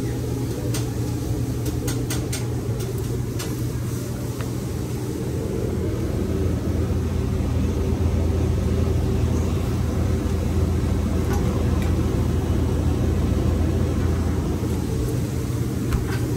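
Steady low machine hum that grows louder about six seconds in, with a few light clicks in the first four seconds.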